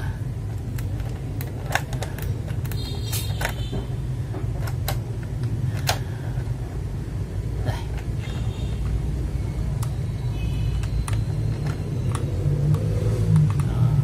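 Scattered light plastic clicks and taps of XDA-profile keycaps being handled and pressed onto the switches of a GamaKay LK67 mechanical keyboard, over a steady low rumble.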